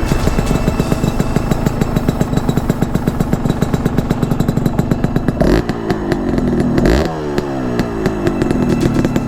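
Honda CRM250R's two-stroke single-cylinder engine running with a rapid, even beat; a little past the middle its pitch rises and falls with a couple of throttle changes.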